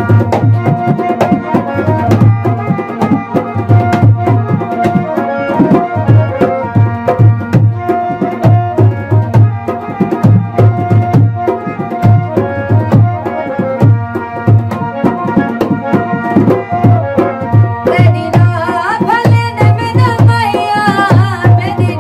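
Harmonium and dholak playing a Saraiki folk song, the harmonium holding steady chords over a rhythmic pattern of deep dholak strokes. A woman's singing voice comes in near the end.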